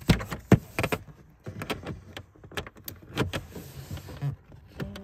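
Hard plastic clicking and knocking as a fuse panel cover is pried and worked loose under the dashboard, with a few sharp snaps in the first second and lighter scattered clicks after.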